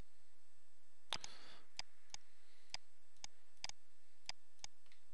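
Computer mouse and keyboard clicks: about nine single, sharp clicks at an irregular pace, starting about a second in.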